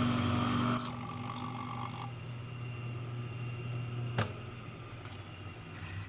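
Milling machine spindle running a four-flute end mill into an aluminum vacuum pump housing under a hissing spray-mist coolant. About a second in the hiss and cutting noise stop sharply and the spindle runs on with a low hum, until a click a little past four seconds as it is switched off.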